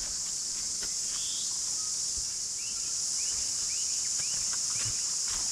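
Steady high-pitched chorus of cicadas. A bird gives a run of short rising chirps in the middle.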